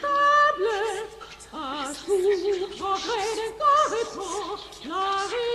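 Soprano voice singing a string of short held notes with wide vibrato, scooping up into several of them, in a contemporary concert work.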